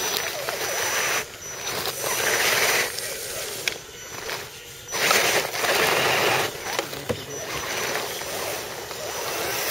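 Electric RC scale crawler trucks climbing a loose dirt mound: motors and gear drives whirring and tyres scrabbling in the soil. The sound swells and drops as the throttle goes on and off, with two clear lulls.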